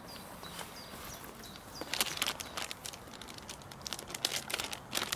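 Small clear plastic bag crinkling and rustling in sharp crackly bursts as it is handled and opened, starting about two seconds in. Before that, a bird gives a few repeated short descending chirps.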